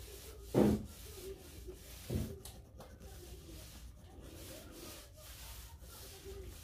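Pencil rubbing along the profiled end of a wooden baseboard while the board is held, with two dull knocks, one about half a second in and a softer one about two seconds in.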